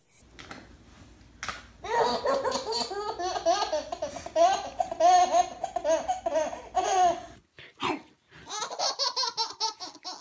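A baby laughing hard in a long run of laughs, then, after a short pause near the end, more baby laughter.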